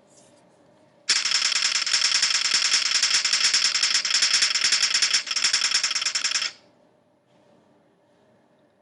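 A loud, rapid rattling noise that starts suddenly about a second in, breaks briefly near its end, and stops suddenly after about five and a half seconds.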